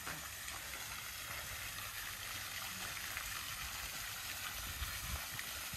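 Small garden waterfall running into a pond: a steady rush of water.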